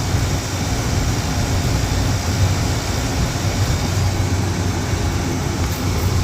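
Air-conditioning condensing unit running steadily: a low compressor hum under the rush of the condenser fan. The system is running as it should.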